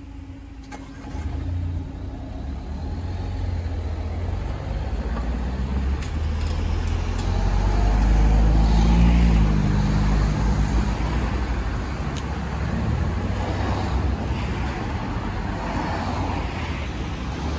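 Road traffic: cars pulling away and driving past close by, engines and tyres rumbling, loudest about eight to ten seconds in.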